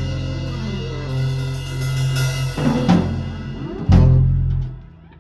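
Ska band playing the last bars of a song on drum kit, bass and horns: a held chord with snare, bass drum and cymbal hits, closing on a final accented hit about four seconds in. The music then stops abruptly.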